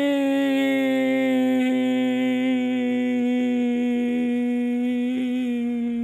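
A man's voice holding one long sung-out shout on a single note, its pitch sinking slowly.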